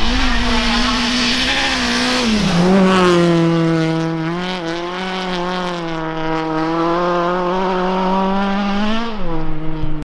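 Citroën C2 R2 Max rally car's four-cylinder engine running at high revs as the car passes and drives away on a snowy road. The pitch drops a little over two seconds in, then holds steady with small wavers. A hiss is loudest in the first couple of seconds, and the sound cuts off suddenly near the end.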